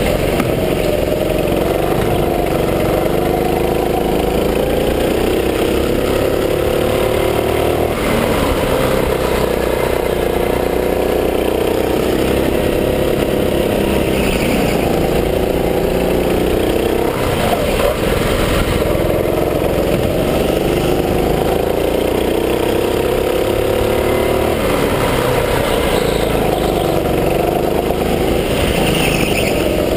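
Gas go-kart engine running hard under the driver. Its pitch climbs steadily and then drops back every few seconds, revving up along the straights and easing off into the corners.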